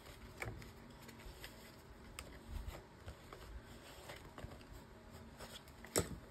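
Cardstock being handled and creased with a bone folder: soft rubbing with a few light clicks, and a sharper tap on the table near the end.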